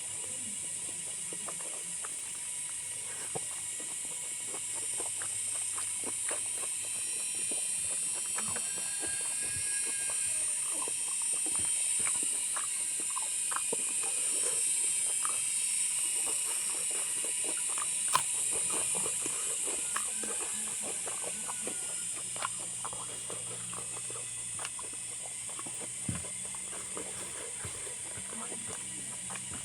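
Close-up eating sounds: many small irregular clicks and smacks of chewing over a steady high hiss that swells for a while in the middle, then eases off.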